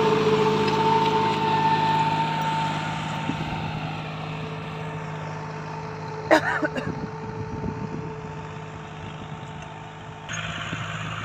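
John Deere 5039D tractor's three-cylinder diesel engine running steadily under load while pulling a 16-disc harrow through the soil, growing fainter as the tractor moves away. A brief sharp call breaks in about six seconds in, and the sound shifts abruptly near the end.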